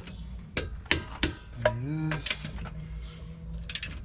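Click-type torque wrench set to 140 foot-pounds tightening a wheel lug nut: a few sharp metallic clicks spread out, then a quick run of ratchet clicks near the end. The wrench's click is the sign that the nut has reached its set torque.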